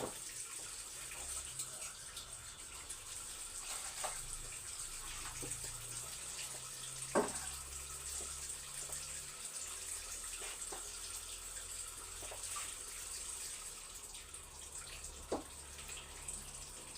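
Water running steadily from a kitchen tap into the sink, with a few sharp knocks as things are handled in it.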